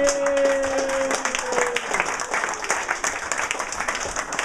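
Live audience applauding, with many hands clapping throughout. A single long held note sounds over the clapping for the first couple of seconds and dips slightly in pitch as it ends.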